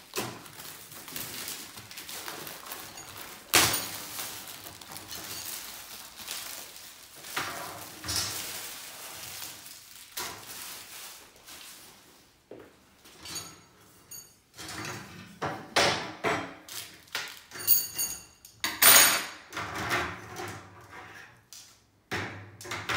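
Plastic wrapping crinkled and pulled off a flat-packed metal wire mesh document tray, with one sharp knock a few seconds in. From about halfway, the black mesh trays and metal tube frame pieces clink and clatter against each other and the desk, several strikes ringing briefly.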